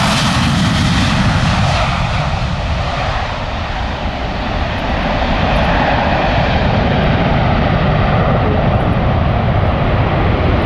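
Boeing 787 Dreamliner's twin Rolls-Royce Trent 1000 turbofans at takeoff power, a steady jet roar as the airliner lifts off and climbs steeply away. The highest hiss fades as it gains height.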